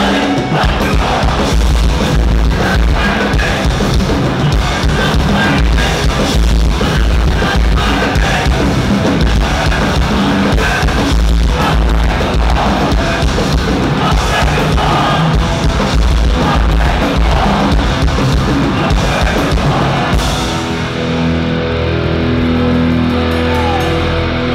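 Hardcore punk band playing live: distorted electric guitars, bass and a pounding drum kit with shouted vocals. About 20 seconds in the drums drop out and the guitars ring on in long held notes.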